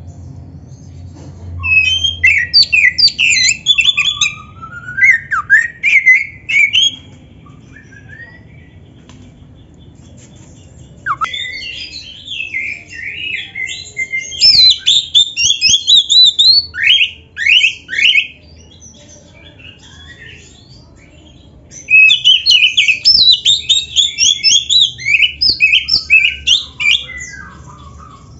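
Oriental magpie-robin singing: three long bursts of rapid, varied whistles and chattering notes, some sliding up or down, with pauses of a few seconds between.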